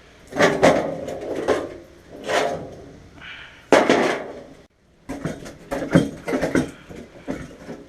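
Metal clanking and knocking as the sheet-steel case and internal parts of an old Lincoln 225 AC tombstone welder are pulled apart and handled, a string of irregular knocks with the sharpest one a little before the middle.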